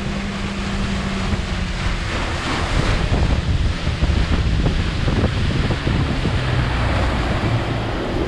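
Fishing boat's outboard motor running at speed, with water rushing in the wake and wind buffeting the microphone.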